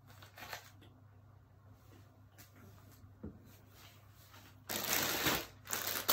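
Clothing being handled: faint rustles at first, then loud, continuous rustling from about two-thirds of the way in.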